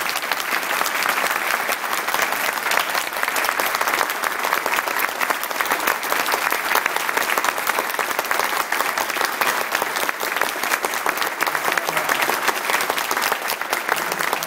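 Audience applauding steadily and loudly, with one person clapping close by.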